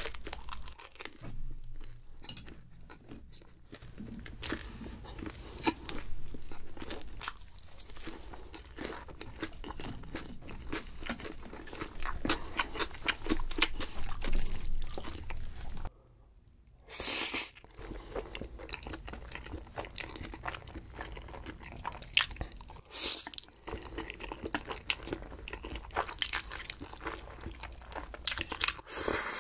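Close-up chewing and biting of thin-crust pizza, with crisp crunches from the crust as it is chewed, pausing briefly about halfway through.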